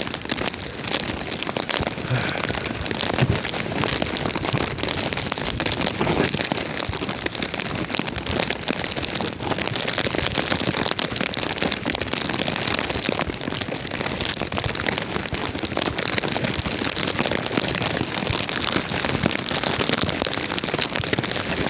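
Wind blowing over the microphone during a snowstorm: a steady, loud rushing noise peppered with many small crackles.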